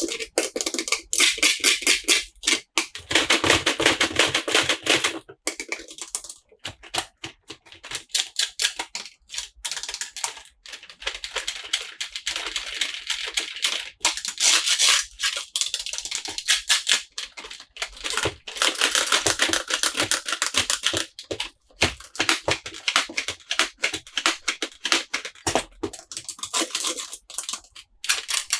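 Close, rapid clicking and crackling of hands handling plastic toys and their packaging, ticking on almost without pause in quick irregular runs.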